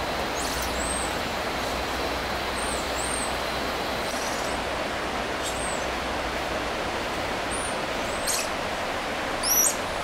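Steady rushing outdoor background noise with a handful of short, high-pitched chirps scattered through it.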